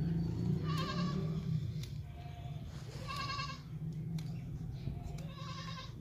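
Goat bleating three times, each a short, high, wavering call about two seconds apart, over a steady low hum.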